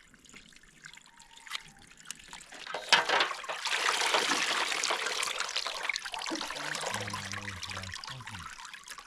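Water being poured and trickling, starting about three seconds in with a sharp clunk, loudest for a couple of seconds, then tapering off.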